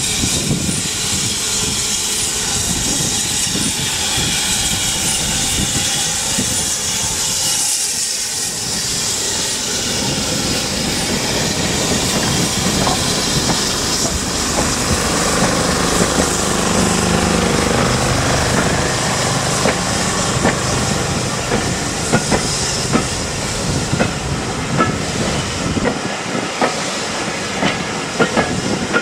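BR Standard Class 4 2-6-4 tank engine 80078 crawling past with steam hissing, then its coaches rolling slowly by. From about two-thirds of the way in, the wheels click more and more often over the rail joints.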